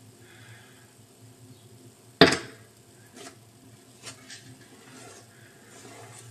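Kitchen items being handled: one sharp knock about two seconds in, then a few lighter clicks and taps.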